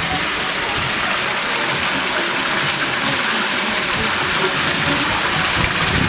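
Water pouring from the three spouts of a tiled village fountain into its stone trough: a steady splashing rush.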